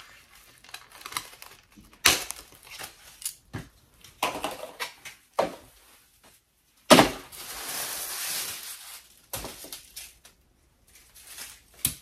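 Scissors snipping through the paper band around a packaged wig, with irregular rustling and crinkling of the packaging. A loud rustle about seven seconds in runs on for a couple of seconds.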